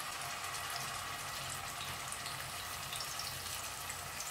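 Masala-coated fish frying in hot coconut oil over medium heat: a steady sizzle with fine crackles, over a faint low hum.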